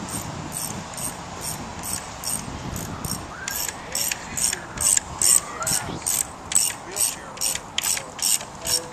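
Ratchet wrench clicking in a steady rhythm of short strokes, about two to three clicks a second, growing much louder about three seconds in as a bolt is worked.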